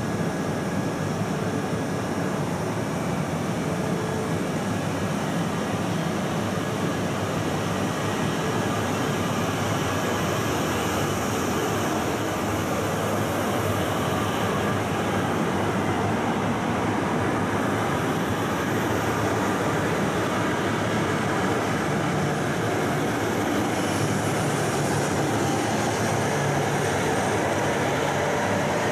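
Shinkansen train, an E6-series set coupled to an E5, rolling slowly along the station platform: a steady, even running noise of wheels on rail and motors.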